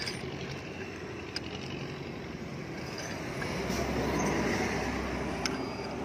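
A road vehicle passing by, its engine rumble rising and fading about four to five seconds in, with a few sharp metal clicks of wrenches working on a motorcycle's rear sprocket.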